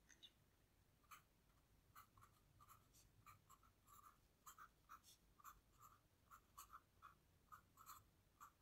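Pen writing on paper: a faint run of many short scratching strokes, beginning about a second in.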